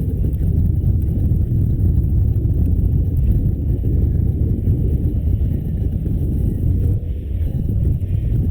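Wind buffeting a GoPro Hero 5's microphone on a moving bicycle: a loud, steady, fluttering low rumble with no clear tones.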